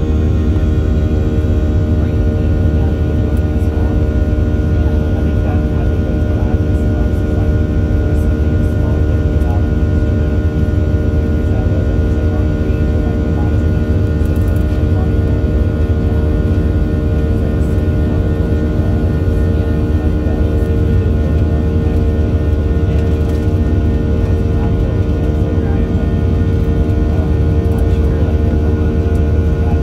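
Boeing 737-700's CFM56-7B jet engines running steadily: a constant deep drone with several steady tones over it, holding the same pitch throughout.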